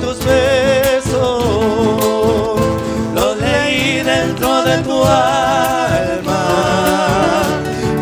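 Two male voices singing an Argentine folk song live, holding long notes with vibrato, over strummed acoustic guitars.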